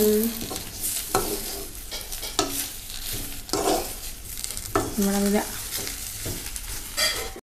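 Shallots, garlic and herb leaves frying in coconut oil in a kadai, sizzling steadily as they are stirred, with a spoon scraping the pan every second or so.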